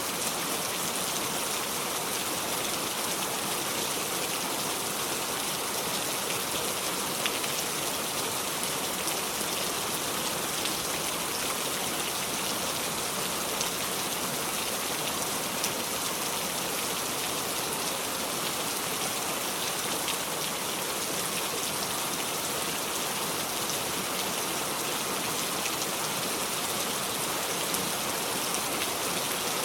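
Steady heavy rain falling without thunder, an even hiss with scattered drop ticks.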